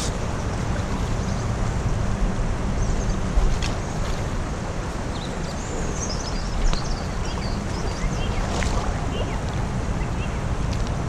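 Steady rush of shallow river water with wind buffeting the microphone, broken by a few short clicks and splashes as a landing net goes into the water.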